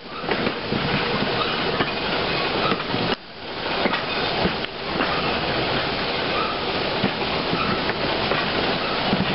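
Passenger train running along the track, its wheels rolling on the rails with scattered clicks over a steady noise, heard from a coach window. The noise drops away briefly about three seconds in.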